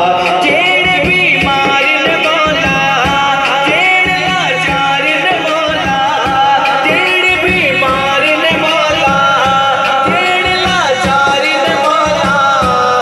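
A male voice singing a Punjabi naat into a microphone, in long wavering lines that bend and glide in pitch, over a steady drum beat.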